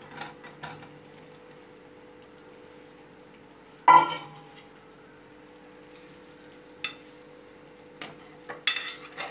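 Boiled-and-fried baby potatoes dropped from a steel bowl into an aluminium kadai of simmering masala. A loud metal clank comes about four seconds in. Near the end a spoon clinks and scrapes against the pan as the potatoes are stirred, over a faint steady sizzle.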